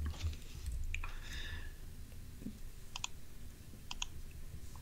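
A few sparse, sharp clicks from computer use, the last two each a quick double click.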